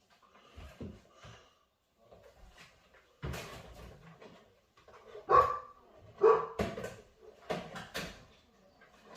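A dog barking, a series of short barks that grow louder in the second half.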